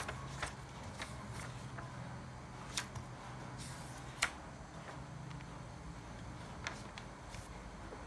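Sheets of lined note paper being lifted and turned by hand: soft paper rustling with a few sharp clicks and taps, the loudest about four seconds in.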